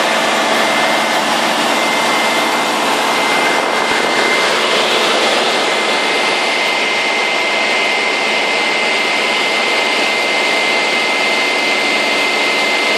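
Light single-engine propeller aircraft's engine and propeller droning steadily, heard from inside the cabin in cruising flight, with a thin high steady whine alongside.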